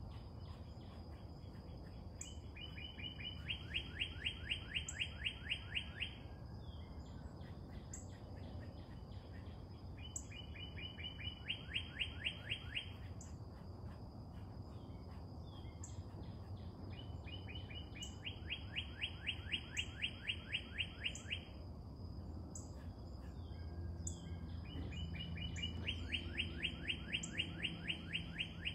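A songbird singing the same fast, even trill, each about three seconds long, four times at intervals of roughly eight seconds. A faint steady high tone runs underneath.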